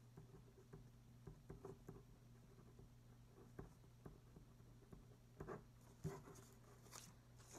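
Faint scratching and small taps of a pen writing on paper, over a steady low hum of room tone.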